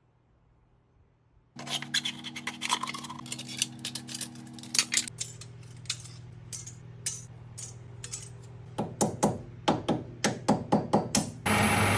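After a second and a half of near silence, metal parts clinking and scraping in sharp, irregular clicks over a low steady machine hum. The clicks come quickly near the end, and then a loud steady machine noise starts.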